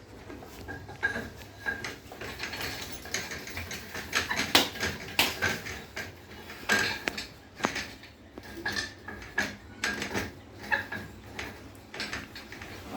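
Irregular metal clanks and knocks, some with a short ring, the loudest about four and a half seconds in.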